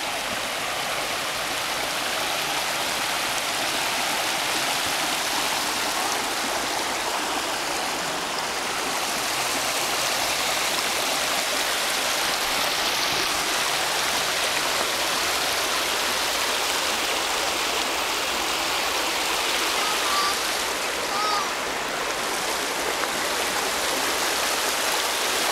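Shallow creek water rushing over rocks and small rapids, a steady, even rush.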